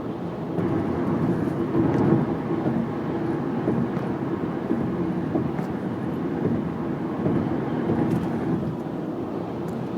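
Steady road and engine noise inside the cabin of a 2008 Honda Accord driving at highway speed, swelling a little about two seconds in and again near the end.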